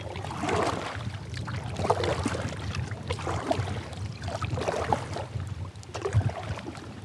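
Kayak paddle strokes: the blades dip and pull through the water, with splashing and dripping swelling about every second and a half. A low wind rumble runs underneath.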